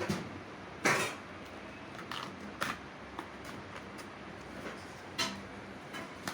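A parcel box being opened by hand: irregular knocks, scrapes and rustles of packaging being handled, the loudest about a second in and another near five seconds.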